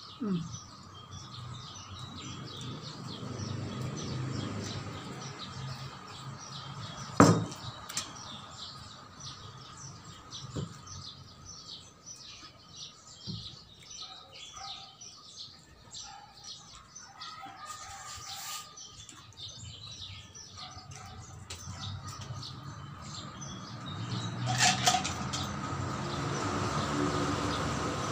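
Birds chirping in the background, many short chirps throughout. A single sharp knock stands out about seven seconds in, and the sound grows louder for the last few seconds.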